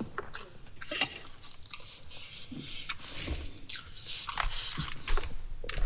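A person chewing and biting food: wet mouth sounds with scattered sharp clicks and smacks.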